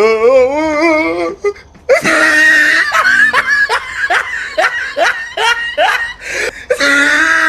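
Hearty laughter: a wavering, drawn-out vocal cry in the first second, then from about two seconds in a long run of quick 'ha' pulses, about three a second.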